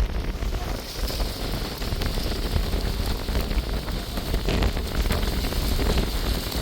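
Wind buffeting the microphone in a storm, a heavy low rumble over a steady rushing hiss that grows stronger about a second in.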